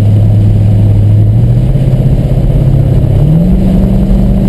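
Mercedes-Benz E55 AMG's V8 engine, heard from inside the cabin, pulling hard down a straight. Its note climbs in pitch in two steps, once about a second and a half in and again about three seconds in.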